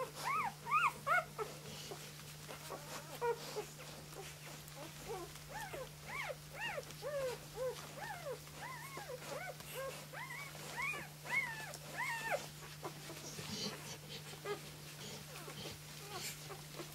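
Newborn flat-coated retriever puppies squeaking and whimpering as they nurse: many short, high squeaks that rise and fall. There is a quick flurry at the start and a long run of squeaks in the middle.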